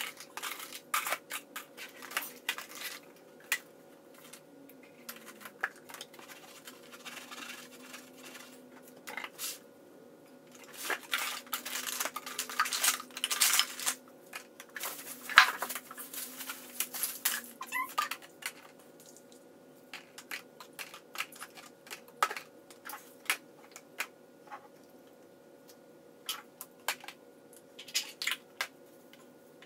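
Plastic bottles, cans and hair tools knocking and clattering against each other and against plastic storage bins as they are picked up, sorted and set down. The knocks are irregular, with the loudest a sharp knock about halfway through, over a faint steady hum.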